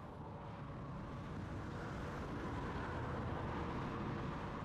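Jet airliner passing, its engines a steady rumble that swells over the first few seconds and begins to ease near the end.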